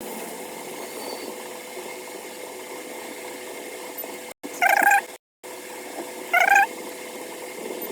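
A cat meows twice, two short wavering calls about a second and a half apart, over a steady background hiss.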